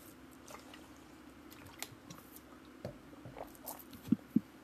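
Scattered small clicks and rustles of hand movement over a steady low hum, then two short, loud, low thuds in quick succession about four seconds in.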